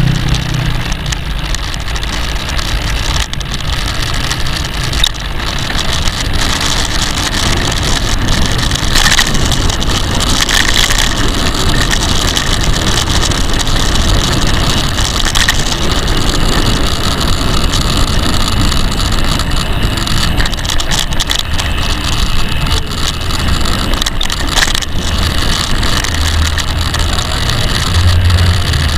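Steady rushing wind and road noise from riding a bicycle, with a low rumble.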